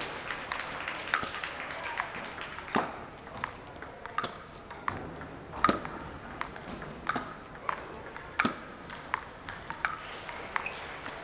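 Table tennis rally: the ball clicking sharply off sandpaper-faced paddles and the table in an irregular run of quick hits and bounces.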